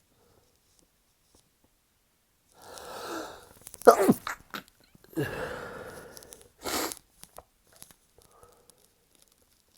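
A person's sneezing fit, stifled. A breathy build-up about two and a half seconds in leads to a sharp sneeze near four seconds, with a second sneeze about a second later and a short burst near seven seconds. A few small sniffs and clicks follow.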